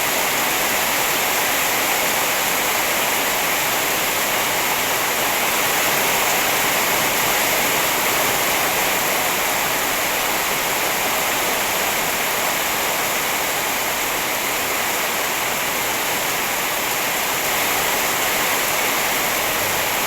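Rain falling steadily: an even, unbroken hiss with no drops or patter standing out.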